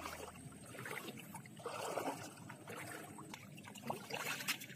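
Shallow water sloshing and trickling around the legs of someone wading through knee-deep water, with a couple of faint knocks near the end.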